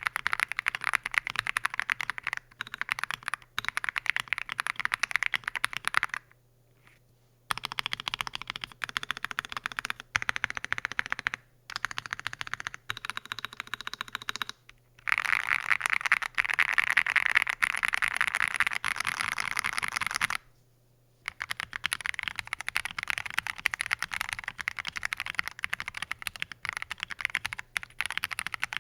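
Fast typing on an Akko ACR Pro Alice Plus mechanical keyboard with lubed Akko CS Clear linear switches on a modded polycarbonate plate: dense, rapid keystroke clacks with short pauses. The first part is with PE switch foam and plate foam; after a brief silence about two-thirds through, the typing continues with no foams fitted.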